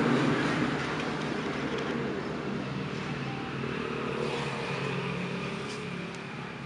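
A motor running with a steady low hum that fades gradually.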